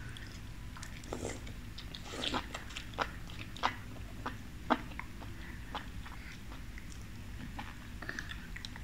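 Close-up eating sounds of oden noodles being sucked in and chewed: scattered short clicks and mouth smacks, a few louder ones between about two and five seconds in.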